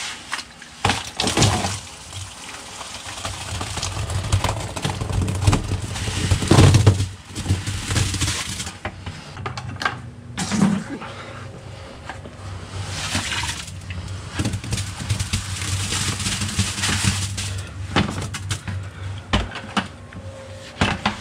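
Sand being scooped from plastic buckets and dumped into a partly drained plastic trash-can filter holding water: gritty pouring and splashing, with sharp knocks of bucket against bucket. The loudest pour comes about seven seconds in.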